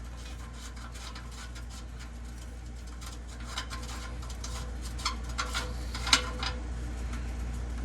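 Light clicks and metallic taps of a wrench and an old oxygen sensor as the sensor, just broken loose, is worked and unscrewed from the exhaust pipe, over a steady low hum. The clicks cluster in the second half, with one sharper tap near the end.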